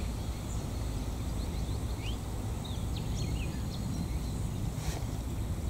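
Outdoor ambience: a steady low rumble with short bird chirps and calls scattered through it, and a single sharp click about five seconds in.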